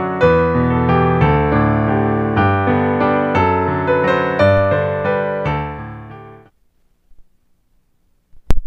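Piano playing a slow series of chords, the last chord fading out about three-quarters of the way through. After a pause, a couple of short, loud low thumps near the end.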